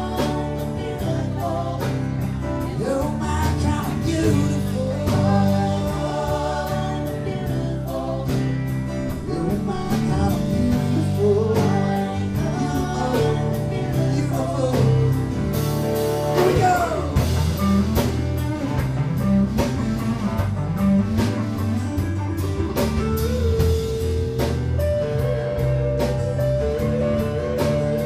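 Live band music: electric and acoustic guitars, bass guitar and drums with vocals over them, and a sustained held note near the end.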